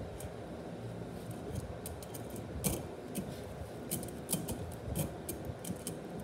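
Scattered light metallic clicks and clinks of steel TH400 transmission parts being handled: a sprag and its toothed race being worked onto the clutch drum, resisting going in.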